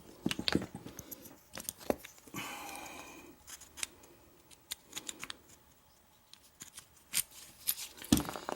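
Small metal clicks and knocks of Kwikset lock cylinders and rekeying tools being handled on a bench, with a scraping rattle lasting about a second a little over two seconds in.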